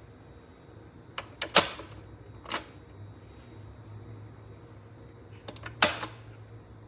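Several sharp clacks and knocks of hard objects being handled, in a cluster a little over a second in, once more about 2.5 s in, and again near the end, over a faint low hum.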